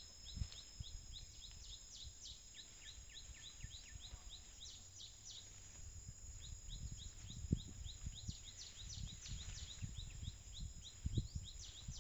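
Rural outdoor ambience of a steady high insect drone and runs of quick, short downward chirps. Under them are irregular low thuds and rustling from an elephant moving and feeding in the undergrowth, thicker in the second half.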